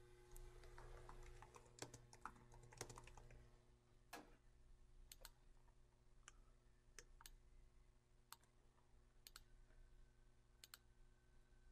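Faint computer keyboard typing in the first few seconds, then scattered single clicks of a computer mouse about once a second.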